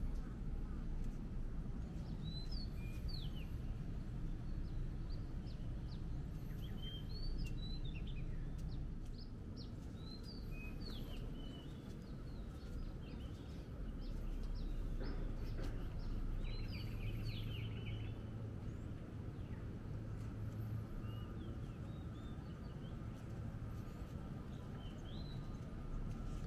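Morning city ambience: a steady low rumble of distant traffic, with small birds chirping now and then in short, quick calls and a brief rapid trill about two-thirds of the way through.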